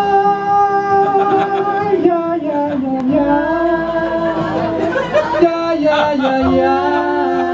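A small band playing live, with voices singing long held notes in harmony over light string backing.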